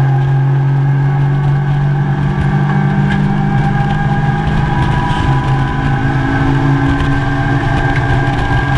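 Mazda MX-5 race car's four-cylinder engine heard from inside the cockpit, running loud under power at a mostly steady pitch, with road and wind noise beneath it.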